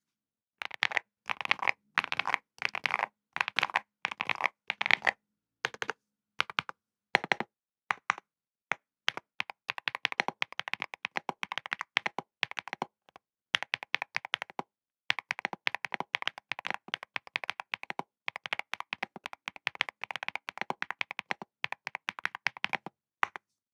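Typing on an aluminium Evo75 Nebula mechanical keyboard with Neo Rye linear switches mounted on a polypropylene plate. It starts with a few slower groups of keystrokes. From about nine seconds in it turns to fast continuous typing, with a couple of short pauses.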